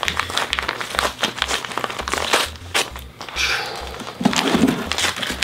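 Cardboard mailing box being opened: packaging crinkling and rustling, with scissors cutting into the packing tape.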